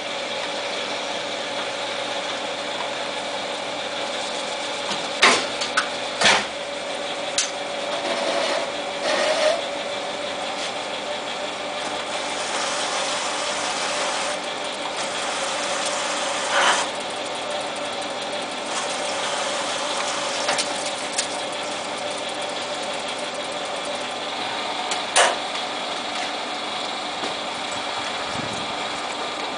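Small Jet TL-25 turret lathe running with a steady hum and a held whine. Several sharp metal clacks stand out as the turret and chuck are worked by hand.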